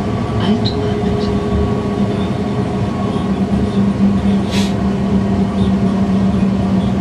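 Tram running along street track, heard from the driver's cab: a steady hum from its electric drive over the rumble of the wheels on the rails. There is a brief hiss about four and a half seconds in.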